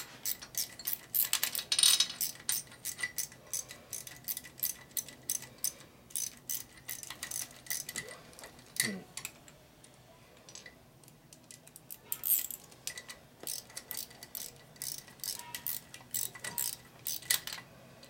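Hand ratchet wrench clicking in quick runs as nuts are run down, with a short pause around the middle.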